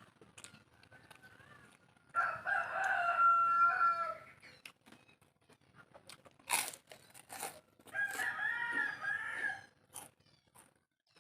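A rooster crowing twice, each crow about two seconds long, with a couple of sharp clicks in between.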